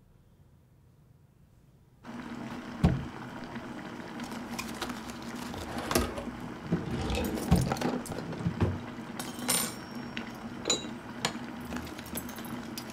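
Near silence for about two seconds, then kitchen clatter of tea being made: a drawer opening, and china cups, teapot and lid clinking and knocking on the counter, over a steady low hum.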